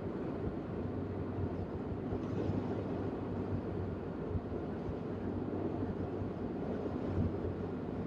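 Steady road noise of a moving car heard from inside the cabin: a low, even drone.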